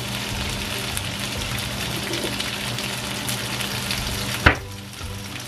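Green beans sizzling in a little oil in a nonstick frying pan, a steady hiss over a low hum. There is one sharp knock about four and a half seconds in, after which the sizzle is quieter.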